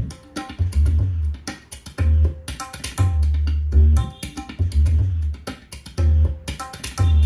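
Instrumental stretch of a Hindi song played back through a 5.1 home theatre speaker system at sound-test volume: tabla strokes over a deep bass beat that hits about once a second, with plucked strings.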